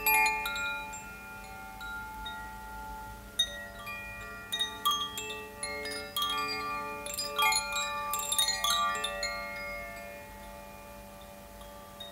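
Chimes ringing: clusters of struck metallic tones at several pitches that overlap and ring on as they fade, busiest at the start, around four to five seconds in, and again around seven to nine seconds.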